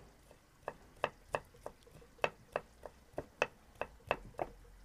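Kitchen knife chopping garlic on a wooden end-grain cutting board: about a dozen sharp knocks, unevenly spaced, two to three a second.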